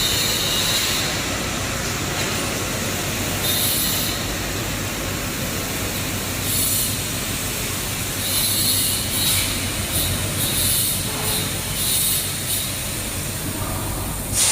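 Handheld fiber laser welder at work: a steady hiss of machine and shop noise, with repeated short high-pitched hissing bursts as weld passes are made.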